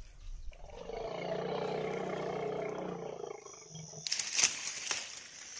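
Wild Asian elephant giving one long, low roar of about three seconds, starting about half a second in.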